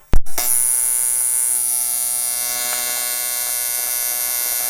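An AC TIG welding arc starts with a sharp crack, then buzzes steadily on an aluminium compressor housing, melting the dented spot so it can settle back down.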